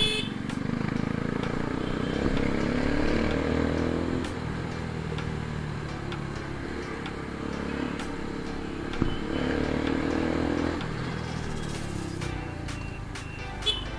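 Yamaha FZ-S V3's single-cylinder engine running as the motorcycle rides along, its pitch rising as it speeds up about two seconds in and again near ten seconds. A short horn beep comes right at the end.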